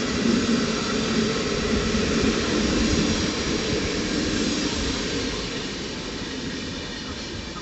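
A train running past on the rail line, a steady rushing rumble of wheels on track, loudest in the first few seconds and then fading gradually as it moves away.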